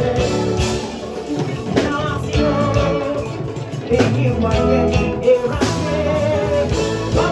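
Live Ghanaian gospel band playing on electric guitars and keyboard with a regular beat, while a woman sings through a microphone and PA.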